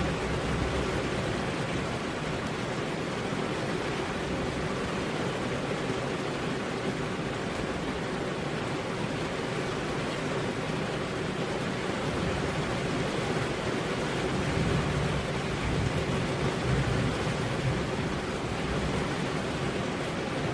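Heavy rain falling steadily on a road as an even hiss, with a low rumble swelling briefly about two thirds of the way through.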